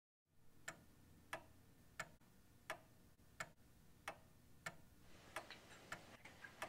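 Old wooden-cased wall clock ticking steadily and quietly, about three ticks every two seconds, starting just after a moment of silence.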